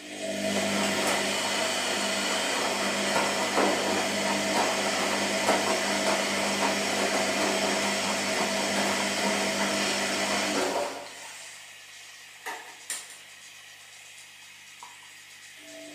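Washing machine running: a steady motor hum with drum and water noise starts at the outset and runs for about eleven seconds, then stops. Two knocks follow in the quieter pause before it starts up again at the very end.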